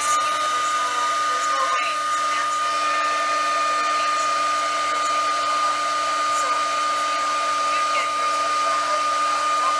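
Hand-held hair dryer running steadily: a high, even motor whine over the rush of blown air.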